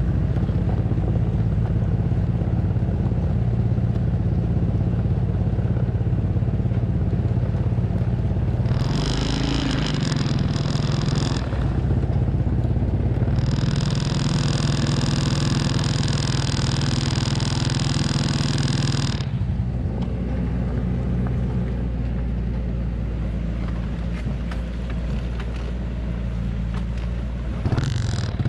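Engine of a heavy truck loaded with acacia logs, running in a steady low drone as it crawls along a rutted mud track. A shrill high sound joins briefly about a third of the way in and again for several seconds in the middle.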